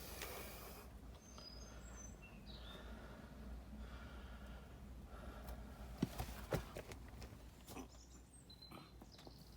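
Faint scuffing and a few sharp knocks, two close together about six seconds in and another near eight seconds, as a person clambers down excavated dirt steps into an old air-raid shelter.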